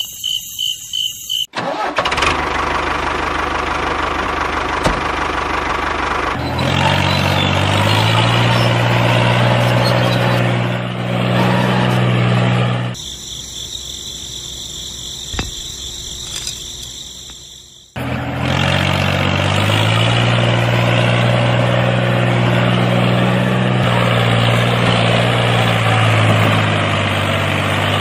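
Tractor engine starting and then running steadily, its pitch stepping up as it revs. For a few seconds in the middle the engine drops away and a thinner, high-pitched sound takes over, then the engine comes back and keeps running.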